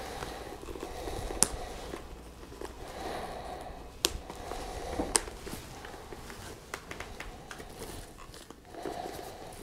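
Hands pressing a motorcycle helmet's padding and plastic trim pieces into place: soft rustling of fabric and foam with three sharp plastic clicks as the pieces snap in.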